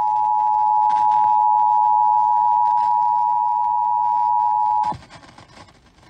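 Emergency Alert System attention signal, the steady two-tone alert, playing through a car radio's speakers and cutting off suddenly about five seconds in. It marks the start of a broadcast emergency alert, here a severe thunderstorm warning.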